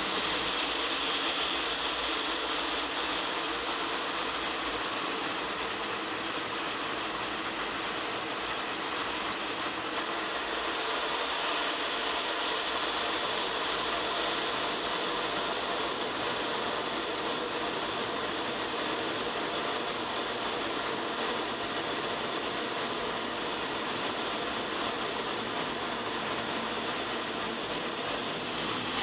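Steady rush of airflow and drone of the A-10 Thunderbolt II's twin TF34 turbofan engines in flight, heard through a camera mounted on the outside of the jet. The hiss shifts in tone about eleven seconds in.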